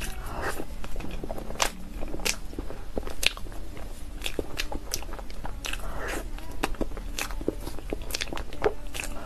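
Close-miked eating of a creamy dessert cake from a spoon: a quick, irregular string of sharp wet mouth clicks and chewing sounds over a faint low hum.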